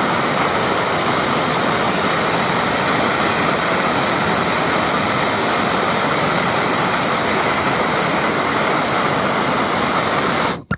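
Gas torch flame running with a steady hiss while a leaking joint on a micro-channel coil is heated for a solder repair; it cuts off abruptly near the end.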